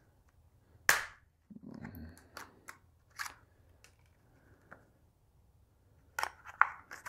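Stiff clear plastic flashlight packaging being pried and cut open by hand, giving a series of sharp plastic snaps and cracks: a loud one about a second in, several smaller ones after, and a quick cluster near the end.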